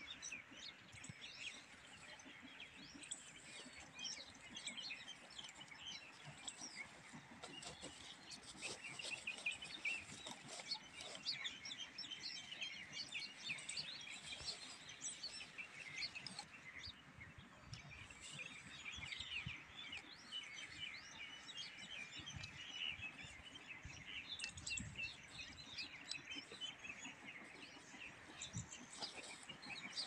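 Many small birds chirping, a dense chorus of short, high chirps that goes on without a break, with a few soft low knocks in the second half.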